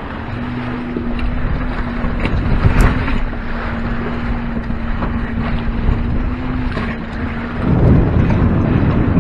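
Wind buffeting the microphone and water rushing along the hull of a small sailboat under sail in choppy water. A steady low hum runs through most of it and stops near the end, after which the wind gusts louder.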